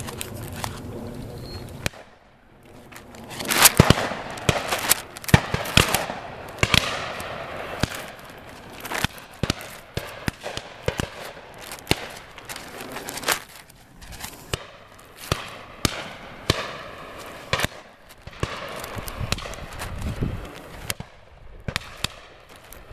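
Shotguns firing at driven pheasants: many irregular sharp bangs, some close together, thickest a few seconds in and then scattered shots throughout.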